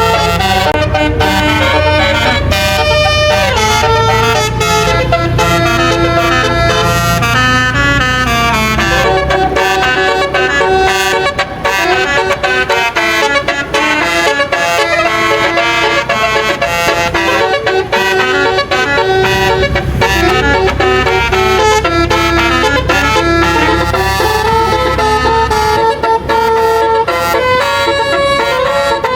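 Bus 'basuri' telolet horn playing a melody, its several horn tones stepping up and down in pitch, over the low rumble of the bus engine.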